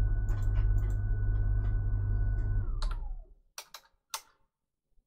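An electric motor hums steadily with a low drone and a thin high whine, then switches off about two and a half seconds in, its whine falling in pitch as it spins down. A few sharp clicks follow near the end.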